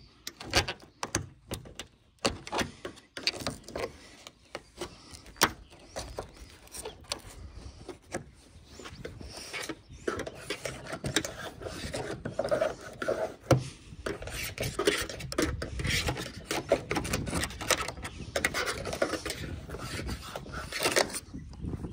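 Irregular rubbing and scraping with many sharp clicks and knocks, busier in the second half.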